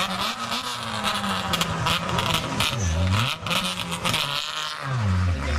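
Small four-cylinder rally hatchback's engine revving hard through a tight corner. Its pitch drops and climbs again twice as the driver lifts and gets back on the throttle, with a rough crackle over the top.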